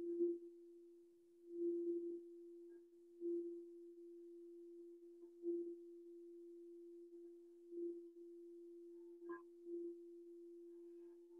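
Quartz crystal singing bowl ringing one steady, pure tone, struck softly with a mallet every couple of seconds so the note swells at each stroke and rings on between them. About 9 s in, one stroke gives a sharper click.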